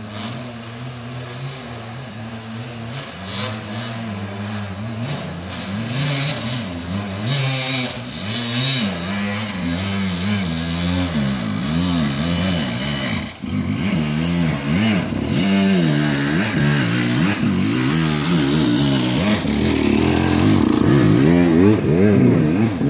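Enduro dirt bike engines revving on a forest trail, the pitch rising and falling again and again as the riders work the throttle. The engine sound grows louder toward the end as a bike comes closer.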